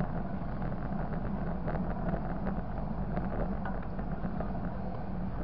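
Small motorcycle engine running steadily at low road speed, heard up close from a camera on the handlebars.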